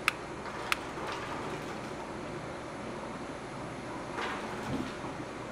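A long-reach lighter clicks sharply twice near the start, held to a cast-iron multi-jet gas ring burner. About four seconds in the blue gas flames catch with a short rush and a low thump, over a steady hiss.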